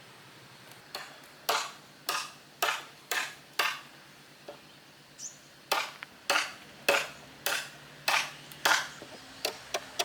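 Repeated strikes of a hand tool on wood, about two a second, in two runs with a short pause between, then lighter, quicker taps near the end.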